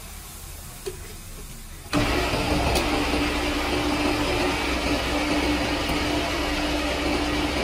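Hydraulic rubber-moulding press's pump motor switching on about two seconds in, then running steadily: a loud even machine noise with a steady hum.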